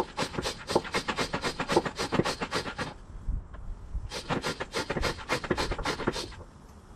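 Hand vacuum pump worked in quick, even strokes, about five a second, drawing old oil out of the high-pressure oil reservoir on top of a Ford 7.3 Powerstroke. The strokes stop for about a second midway, start again, then stop shortly before the end.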